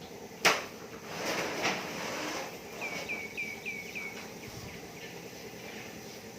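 A sharp click about half a second in, then rustling, then a quick run of about seven short high chirps, each dropping slightly in pitch.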